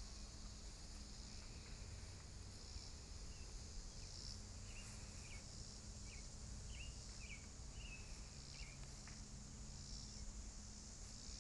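Faint steady high drone of summer insects. A bird chirps a run of short notes from about three to nine seconds in, over a low rumble.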